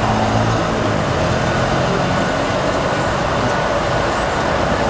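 Steady street background noise with traffic running.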